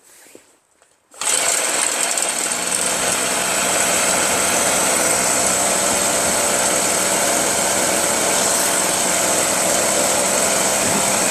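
Ryobi gas backpack leaf blower's small engine and fan running steadily at a constant speed. The sound starts abruptly about a second in and has a strong high air rush.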